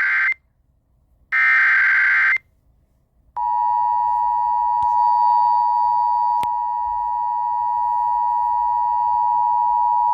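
Emergency Alert System tones: the last of the SAME header data bursts, about a second long and following the tail of the previous one, then about three seconds in the EAS attention signal starts, a steady two-tone alarm of 853 and 960 Hz, announcing a severe thunderstorm watch.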